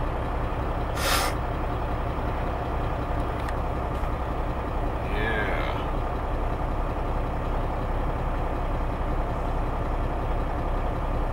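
Semi truck's diesel engine idling steadily, heard from inside the cab, with a brief hiss about a second in.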